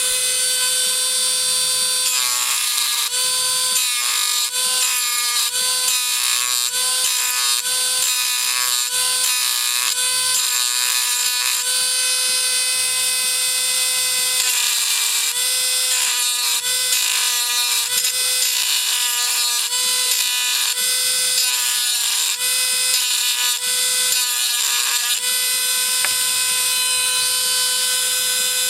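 Dremel rotary tool running at a steady high whine, with a rough chatter coming and going as the bit is pressed against the soft die-cast metal of a toy car.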